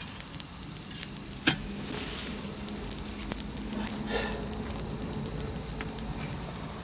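Campfire crackling, with scattered small pops and a sharper snap about a second and a half in, over a steady hiss.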